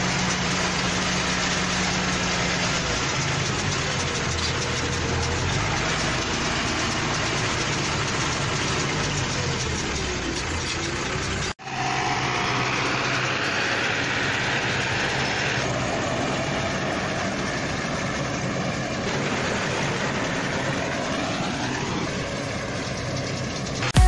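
Ursus tractor's diesel engine running while a John Deere 578 round baler picks up and presses hay, as a steady dense machine noise. The sound drops out for an instant about halfway through, and faint rising whines come in during the second half.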